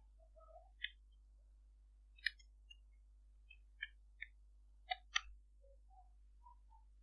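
Computer keyboard being typed on: about eight faint, separate key clicks at an irregular, unhurried pace, the loudest a close pair about five seconds in.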